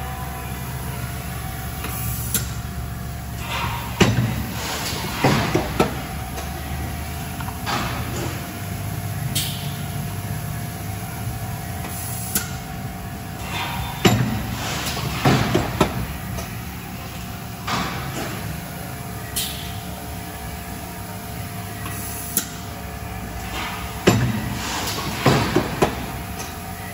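Thermoforming machine with in-line trim press cycling automatically: a cluster of heavy clunks and knocks comes every ten seconds, once per machine cycle, with short sharp hisses between them over a steady machine hum.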